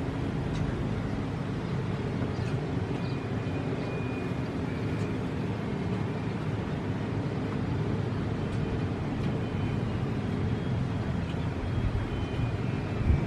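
Steady low rumble of vehicle noise, like a motor vehicle running on the road, with a brief thump near the end.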